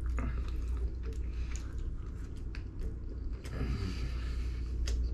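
Small eating noises over a steady low hum: chopsticks clicking lightly on a plastic sushi tray while a salmon sushi roll is dipped in soy sauce and chewed.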